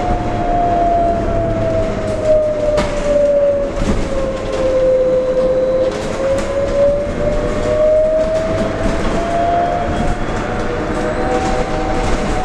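Electric traction-motor whine of a New Flyer XT40 trolleybus's Vossloh Kiepe drive, heard from inside the cabin: a single tone that falls in pitch over the first half and rises again in the second half as road speed changes. A low road rumble and occasional knocks and rattles of the body run under it.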